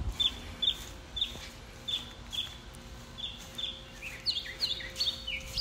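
A songbird chirping, short high notes about twice a second, breaking into a quicker run of falling notes about four seconds in. A faint steady hum runs underneath.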